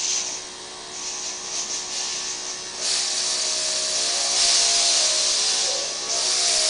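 Compressed air hissing in bursts from the pneumatically driven OctArm continuum robot arm as its sections bend and curl. The hissing grows louder from about three seconds in.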